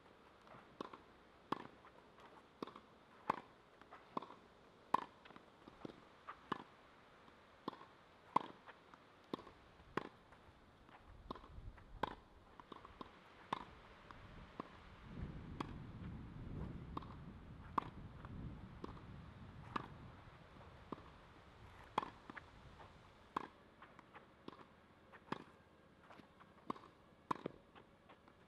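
Tennis ball being hit back and forth in a rally, sharp pops coming evenly about three-quarters of a second apart. A low rumble swells under them in the middle.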